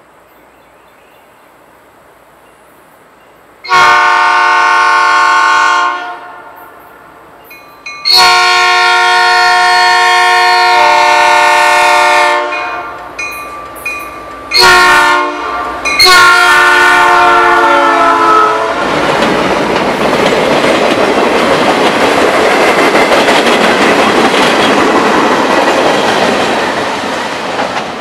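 Diesel freight locomotive's multi-chime air horn blowing two long blasts, a short one and a long one, the standard signal for a grade crossing. Then the train rolls past with a loud rumble and wheel clatter that slowly fades.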